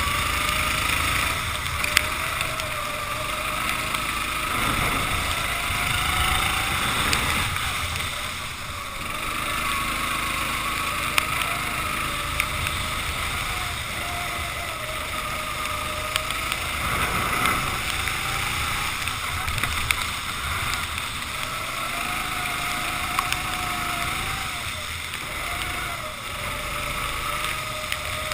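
Racing kart engine heard onboard at speed on a wet track, its pitch rising and falling again and again as the driver comes on and off the throttle, under a steady hiss of wind and water. A few sharp clicks stand out.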